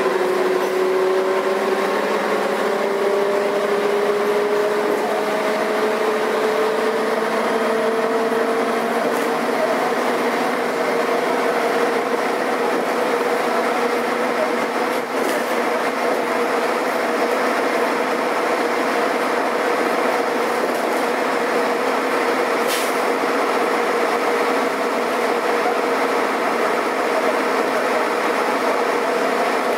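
Karosa B941 articulated city bus running under way. Its engine and drivetrain hum climbs slowly in pitch over about the first ten seconds, then holds steady.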